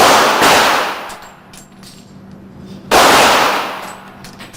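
Three single 9mm gunshots, two close together at the start and one about three seconds in, each followed by a long echoing decay.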